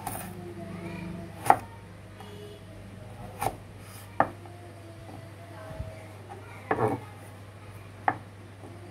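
Chef's knife cutting through carrot onto a wooden cutting board: a handful of sharp, irregularly spaced knocks of the blade meeting the board. The loudest comes about a second and a half in, and a quick cluster follows near the end.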